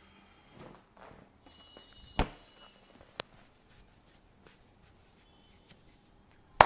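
Massage sounds: hands rubbing over skin, then a sharp crack about two seconds in, a small click a second later, and a louder smack near the end.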